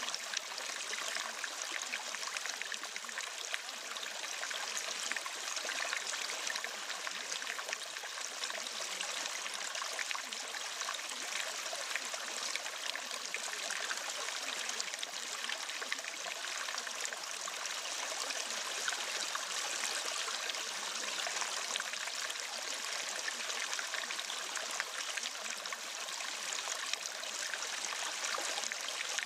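Steady, even flowing-water sound like a running stream, unbroken throughout.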